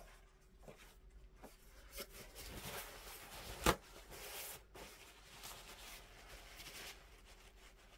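Soft rubbing and scraping from handling painting materials at the work table, with one sharp knock about three and a half seconds in.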